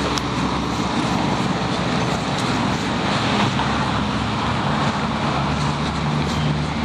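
Steady broad rumble with a low droning hum underneath, holding at an even level throughout.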